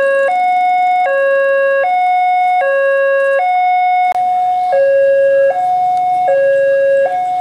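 Railway level-crossing alarm from the loudspeaker on the signal mast: an electronic two-tone chime alternating low and high, each tone held a little under a second, warning that a train is approaching. A click about four seconds in.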